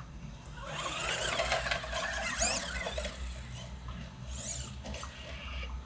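Electric RC monster truck on a 3S battery, accelerating for about two seconds with a squealing motor whine and tyre noise, then a shorter burst near the end.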